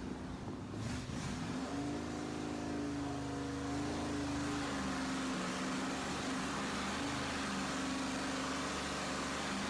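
Junkyard 4.8-litre LS V8 with a Holley 750 carburettor on an Edelbrock Performer RPM dual-plane intake, running on an engine dyno through long-tube headers. About a second and a half in, its speed picks up and then holds steady, sagging a little about halfway through and picking up again.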